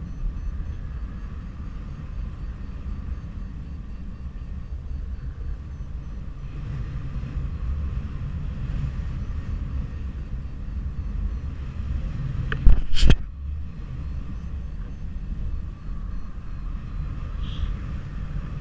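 Wind buffeting the microphone of a camera mounted on a paraglider pilot's harness in flight, a steady low rumble. A brief cluster of sharp knocks, the loudest sound, comes a little under two-thirds of the way through.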